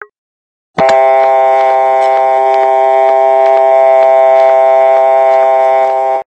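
Electronic tone from a phone: a short beep, then about a second in a loud, steady chord of several tones with a faint tick about twice a second, held for about five seconds before cutting off suddenly.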